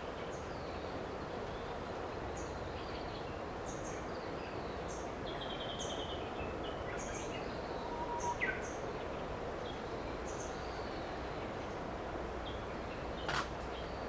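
Wild birds calling over a steady background hiss: scattered short, high chirps, a brief trill about five seconds in and a falling whistle about eight seconds in. A sharp click near the end.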